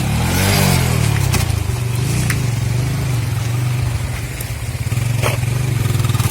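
Vehicle engine running steadily under load, its pitch swinging up and down briefly about half a second in, with a few short knocks from the rough road.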